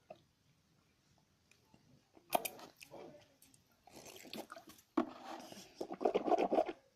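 Crunchy food being bitten and chewed close to the microphone: quiet for the first couple of seconds, then a run of crunches that grows denser and louder toward the end.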